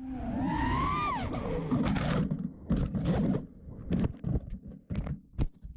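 FPV quadcopter's brushless motors whining, the pitch rising and then falling with the throttle, followed by a string of short, rough, choppy bursts. The sound cuts off abruptly near the end.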